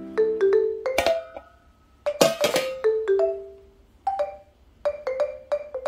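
Light background music of sparse, short struck notes that die away quickly, played in small clusters with brief pauses between them.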